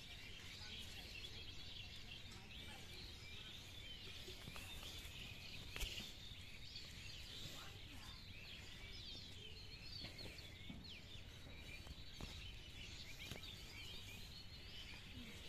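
Faint outdoor ambience: a steady background hiss with many small birds chirping and twittering, and a single sharp click about six seconds in.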